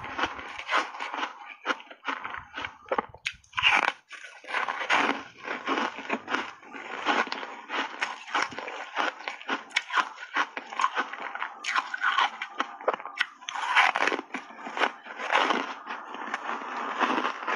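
Close-miked chewing of Jiabao crunchy foam reshaped ice coated in matcha powder: a dense, continuous run of crisp crunches and crackles as the ice breaks between the teeth, with sharper cracks now and then.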